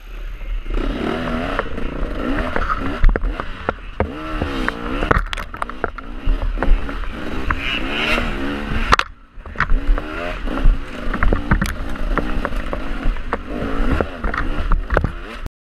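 Dirt bike engine revving up and down as it is ridden over a rough, muddy trail, with frequent knocks and clatter from the bike over bumps. The engine note drops away briefly about nine seconds in and the sound stops abruptly near the end.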